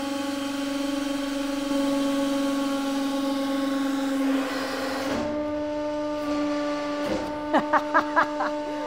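Hydraulic press pump running with a steady hum as it squeezes a tin cube flat and the load climbs past 100 tonnes, with a short hiss midway. Near the end come about five loud, short wavering squeals as the press nears its full load.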